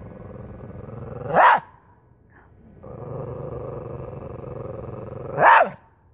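A small dog growls steadily, then gives one sharp bark about a second and a half in. After a short pause it growls again and barks once more near the end.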